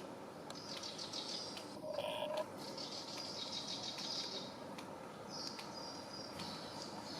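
Rapid high-pitched chirps and squeaks come in clusters, with a short lower-pitched call about two seconds in.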